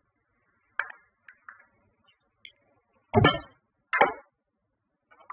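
Light metallic clinks as spices are tipped from a stainless steel container into a steel pot, followed by two louder knocks about a second apart.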